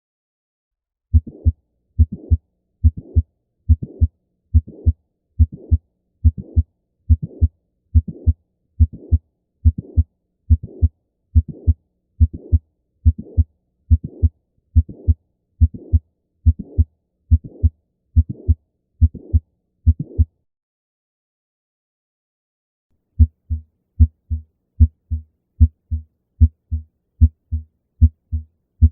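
Recorded heart sounds: a steady lub-dub heartbeat at about 70 beats a minute, which stops about 20 seconds in. After a pause of about three seconds a different heart-sound recording begins, its beats more closely spaced.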